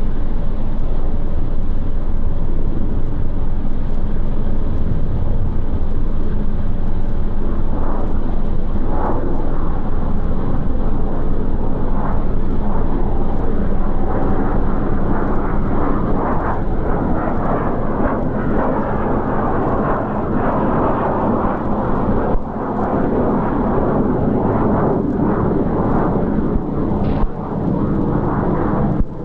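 Steady rumbling noise of an approaching Union Pacific E9 diesel passenger locomotive, growing brighter in the second half as it draws nearer, over a constant low hum.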